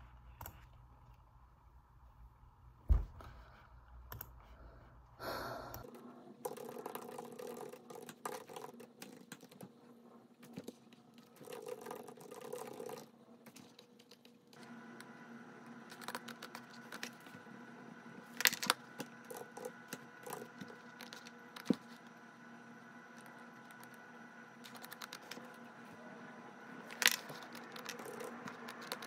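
Quiet desk work: scattered clicks and taps of a computer mouse and the handling of stacked paper sheets on a desk, with a few sharper knocks, over a faint steady hum.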